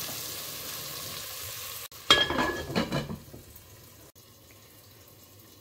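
Diced potato and brinjal sizzling as they fry in oil in a pot, a steady hiss that cuts off about two seconds in. Then a short clatter of kitchenware with a ringing clink, after which it goes quiet.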